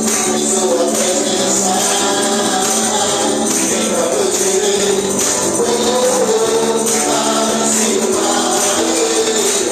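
Live church worship band playing an upbeat celebration song, with voices singing the melody and bright jingling percussion keeping a steady beat.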